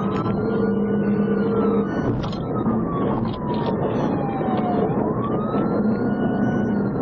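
Police cruiser siren on a slow wail: the pitch tops out about a second in, slides slowly down, then climbs again about five seconds in and starts falling near the end. Under it runs the cruiser's steady road and engine noise at about 80 mph.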